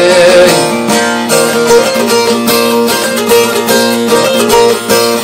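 Bağlama (long-necked Turkish saz) played in a fast run of plucked and strummed notes, an instrumental interlude with no singing.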